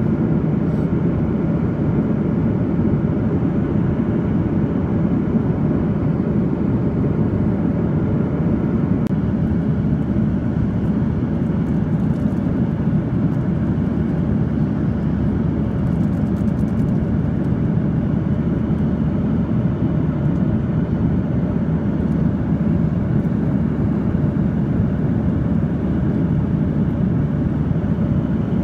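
Steady cabin roar of a Boeing 737-800 in flight: engine and airflow noise heard from inside the cabin, a low, even rumble that does not change.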